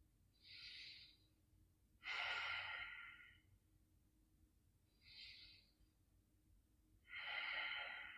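A woman breathing slowly and deeply, four breaths in all: a short, quieter breath followed by a longer, louder one, twice over.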